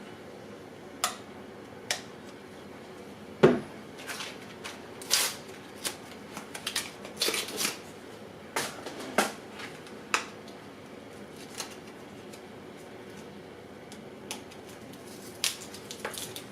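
Scattered plastic clicks and rustles of a DSLR camera body being handled, with a louder knock about three and a half seconds in.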